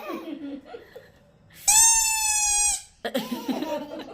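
A squeeze toy's whistle, built into its tail, giving one steady high squeak about a second long near the middle, with scuffling handling noises around it.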